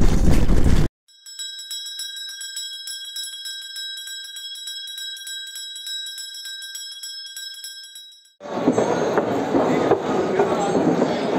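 Brass temple bells ringing, struck again and again in quick succession over several steady high ringing tones that overlap. Motorcycle ride noise cuts off just before, and from about eight seconds in the dense noise of a crowded, echoing queue hall takes over.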